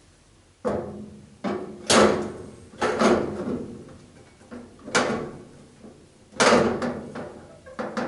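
Front panels of a gas fireplace being fitted back on by hand: a series of sharp knocks and clanks, some with a short ringing tail, spaced irregularly.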